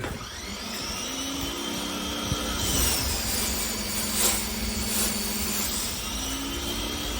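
Pressure washer running and spraying: a steady hiss of water under pressure, with the machine's whine sinking in pitch midway and climbing again near the end.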